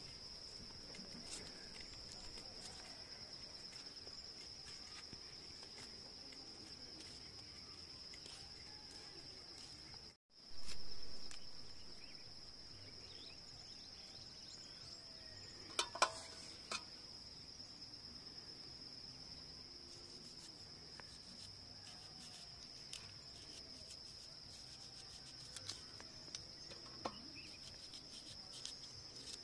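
Insects trilling steadily in one unbroken high tone, with a few sharp clicks about sixteen seconds in.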